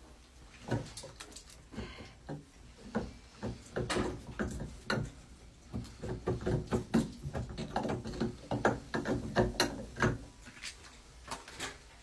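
Irregular clicking and knocking of metal plumbing fittings and tools being handled at a copper water supply pipe, busiest in the middle.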